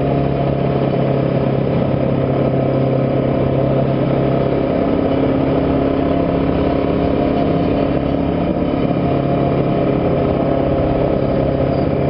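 Homebuilt light helicopter's engine and rotor running steadily, heard from the cockpit, a constant hum with a steady pitch.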